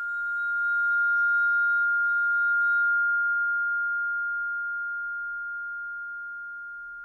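A single high, pure sustained tone from the radio play's musical score. It swells over about the first second and then slowly fades, with faint higher overtones dying out about three seconds in.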